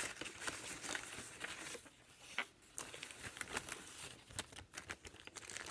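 Bags crinkling and rustling as they are handled, in a faint run of small irregular crackles and clicks.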